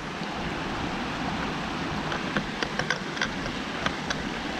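A small spring-fed stream running steadily, with short splashy ticks of water from about halfway in.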